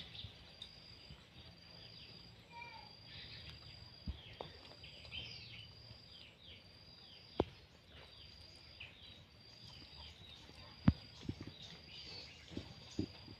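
A dog eating rice off a plastic plate, giving a few sharp clicks and knocks, the loudest about halfway and about three-quarters through. Under it, insects chirp in a steady pulsing high tone, and birds call with short falling chirps.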